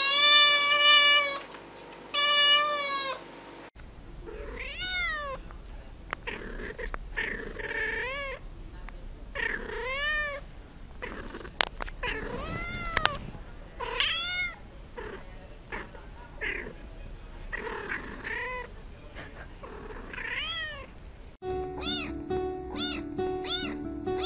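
Kittens meowing, one after another across several clips. First come a few loud, level-pitched meows. Then comes a long run of meows that rise and fall in pitch, about one every second or two. Near the end there are short, quick, high mews.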